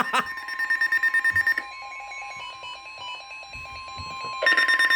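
NOAA Weather Radio warning alarm tone, one steady tone held throughout. A weather alert receiver's own rapid alarm beeping sounds over it, stops about a second and a half in and starts again near the end. The tone signals that a warning is about to be broadcast.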